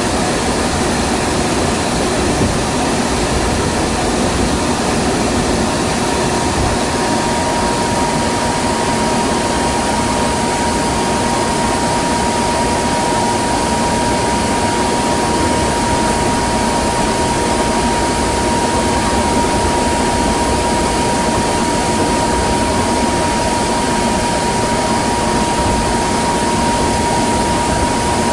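Kintetsu 'Raku' train's running noise heard inside the passenger car: a steady rush and rumble with a constant whine.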